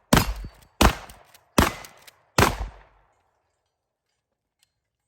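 Remington 870 pump-action shotgun fired four times in rapid succession, about three-quarters of a second apart, each shot a sharp bang with a short ringing tail.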